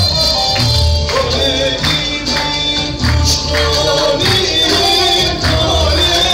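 Music for a Turkish henna-night (kına) dance, with tambourine jingles and low drum beats under a melody line.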